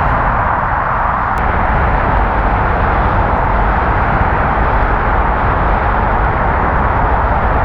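Steady, loud jet engine noise from an airliner taking off, a constant rushing sound with a deep rumble beneath it.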